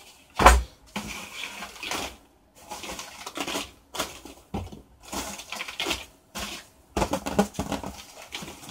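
Shredded-paper packing filler being pushed and pressed into a cardboard box by hand, rustling and crinkling in short irregular bursts. A single sharp thump about half a second in is the loudest sound.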